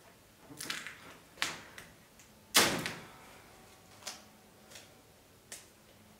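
Cardboard and wallpaper being handled during craft work: a series of short knocks and rustles, the loudest about two and a half seconds in.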